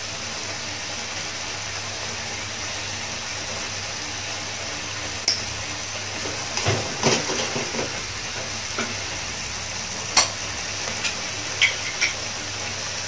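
Onions and spice paste sizzling steadily in a wok, with a metal spoon and spatula clinking sharply against the pan several times in the second half as tomato sauce is spooned in.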